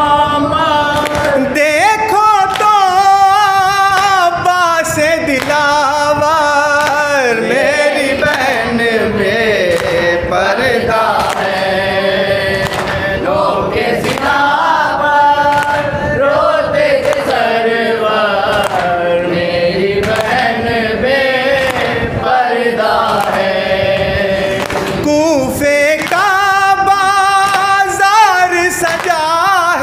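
A male reciter singing an Urdu noha (a mourning lament) into a microphone in a long, wavering chant, with other voices joining in. Regular slaps of chest-beating (matam) keep time under the singing.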